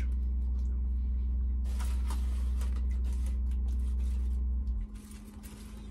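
A steady low hum that cuts off abruptly near the end, with a few light clicks and scrapes of cutlery on plates.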